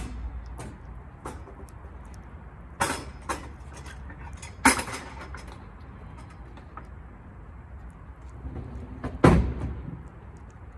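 A cat with stomatitis licking and chewing wet canned tuna from a plastic dish, making wet clicks and smacks, the sharpest about three, five and nine seconds in. A steady low rumble runs underneath.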